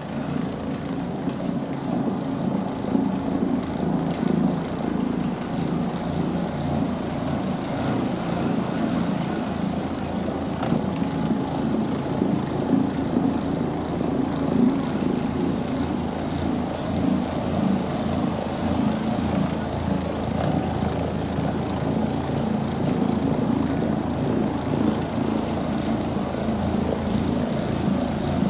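Single-disc rotary floor machine running steadily, its motor humming as it spins a cleaning pad across carpet for very low moisture cleaning.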